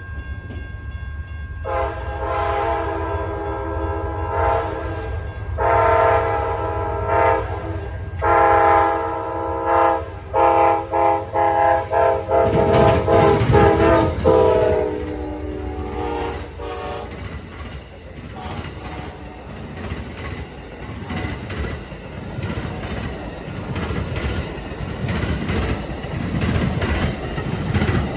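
Locomotive horn sounding a multi-note chord, playing a horn show: several long blasts, then a rapid run of short toots that fade out about two-thirds of the way through. Over a steady low rumble, the train then rolls past with wheels clicking over the rail joints.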